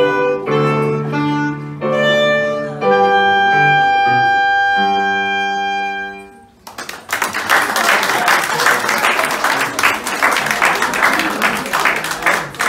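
Clarinet and digital piano play the closing bars of a song: quick notes, then a long held final note over a piano chord that ends about six seconds in. Then an audience applauds.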